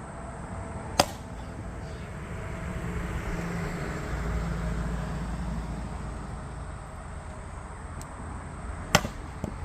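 Two sharp axe strikes on dry firewood, about eight seconds apart, the second the louder, over a steady low rumble.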